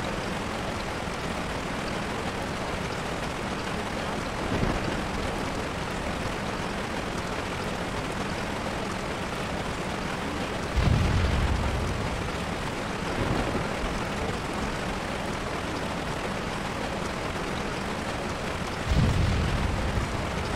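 Steady rushing noise, with deep rumbles that start suddenly about eleven seconds in and again near the end.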